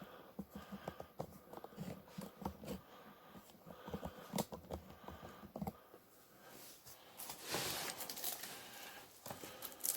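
A cardboard package being handled and opened by hand: scattered light knocks and rustles, with a longer stretch of tearing about seven to eight seconds in.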